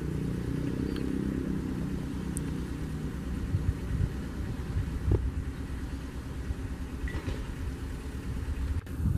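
Diesel engine of an approaching KUJR track-inspection railcar, a steady low engine hum that is clearest in the first few seconds, over a continuous low rumble.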